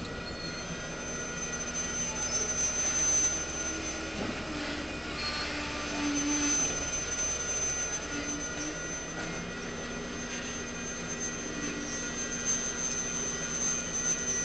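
Diesel engine and hydraulics of a grapple-claw tie-unloading machine riding on a slowly rolling work train: a steady mechanical hum with a high whine held throughout, and short lower tones coming and going every few seconds.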